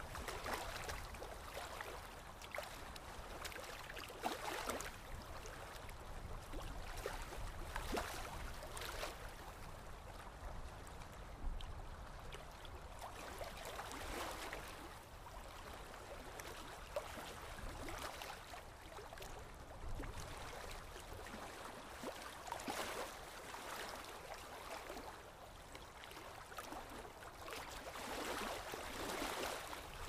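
Water lapping in small, irregular splashes against a shore or hull, with a steady low wind rumble underneath.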